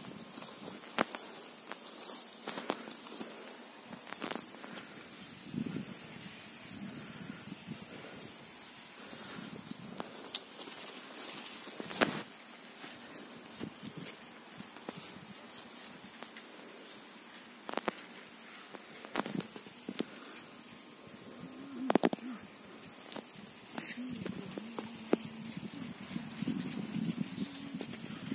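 Insects chirring in one steady, high, unbroken tone. A few sharp clicks and footsteps break in now and then.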